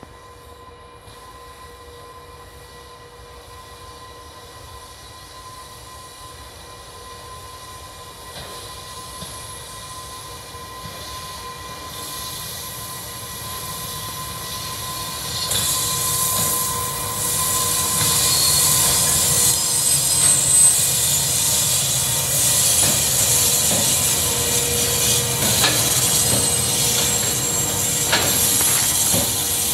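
2ES5S electric freight locomotive hauling a freight train, approaching and passing close by as it departs: a steady electrical whine that grows louder as it nears. About halfway through, wheel-on-rail hiss, clicks and brief squeals join in and stay loud as the locomotive and the first wagons roll past.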